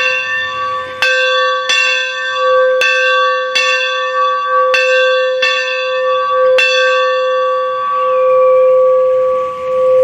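A single church bell rung by hand with a rope, struck about eight times at uneven intervals over the first seven seconds. The last stroke is left to ring on and slowly fade.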